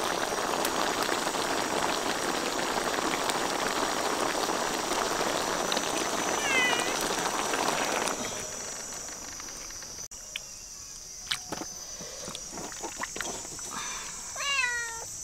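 A steady hiss that cuts off suddenly about eight seconds in, with a short meow in it; after that a few clicks, then a cat meowing several times near the end.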